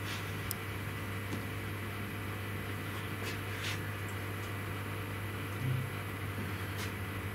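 Steady low electrical hum from the workshop machinery, with a few faint ticks and a short low tone about three-quarters of the way through.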